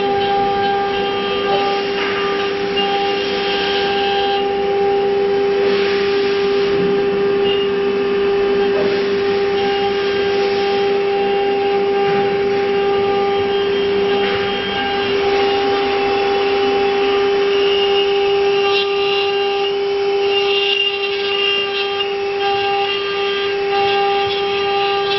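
Acctek AKM1325C CNC router running: a steady high whine with a ladder of overtones, with a rougher noise that grows and fades over it.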